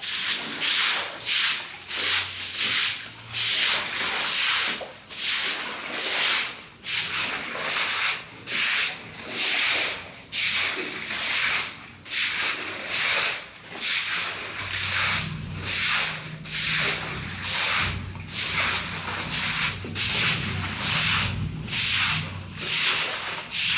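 Rhythmic sweeping or scraping strokes, about one and a half a second, steady and even throughout, with a faint low hum joining about halfway.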